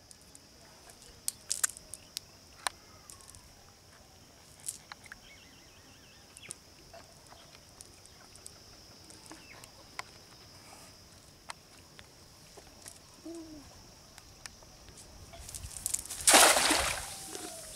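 A cast net is thrown and lands on a pond with one loud rushing splash about sixteen seconds in. Before that there are faint scattered clicks as the net and its weighted edge are gathered up. A steady high-pitched hiss sits underneath throughout.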